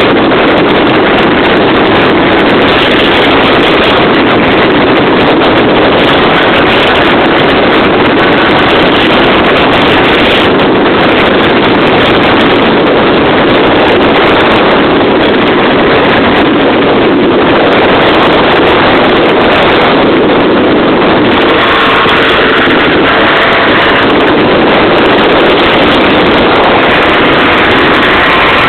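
Wind rushing over the microphone while riding a moped scooter along a road, with the scooter's small engine running steadily underneath. A steadier engine tone shows through more clearly in the last few seconds.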